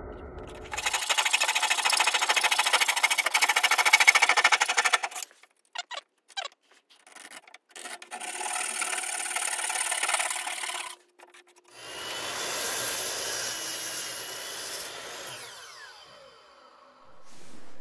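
Power saws cutting primed wooden baseboard trim in three short cuts with brief pauses between them. The last cut is on a miter saw, and its motor whine falls as the blade spins down.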